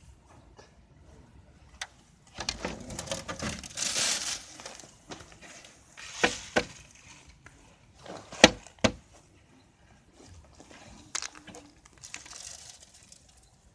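Irregular sharp knocks and bursts of dry rustling, the sort heard while working rice stalks at a manual rice thresher, with a longer rustle about two seconds in and the loudest knock about eight seconds in.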